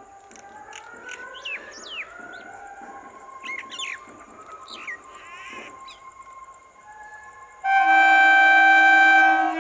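Birds chirping with short rising and falling calls, then about eight seconds in an approaching Indian Railways ICF EMU commuter train sounds its horn: one steady, loud blast of about two seconds.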